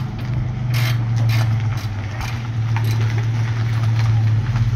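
Engine running steadily with a low, even hum, with light clicks and rattles over it.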